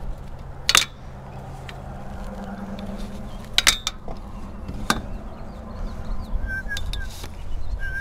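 Sharp metallic clanks of a metal frame and aluminium tube being handled, three of them: about a second in, near four seconds and near five seconds. Wind rumbles on the microphone throughout, and a bird chirps a few times near the end.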